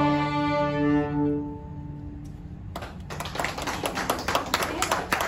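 Beginner string ensemble of violins, violas and cellos holding a final bowed chord that dies away about a second and a half in. After a short lull, applause starts and carries on.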